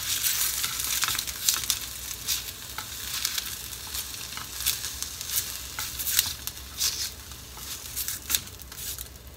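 Dried sardines sizzling in a frying pan on cooking paper over medium-low heat, with a steady hiss and many small crackles and pops as they are turned over with chopsticks. A sharp click comes at the very start.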